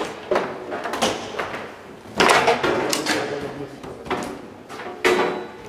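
Foosball in fast play on a Garlando table: the ball and the plastic men clack, and the steel rods knock as they are shot and blocked, with a sharp hit about every second. The loudest hits come about two seconds in and again about five seconds in.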